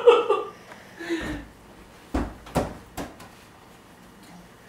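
A rubber ball thudding on a wooden floor three times, about half a second apart; the first two thuds are the loudest.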